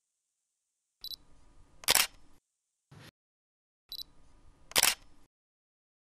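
Camera shutter sound effect, twice: each a light click followed a moment later by a louder snap, with dead silence between.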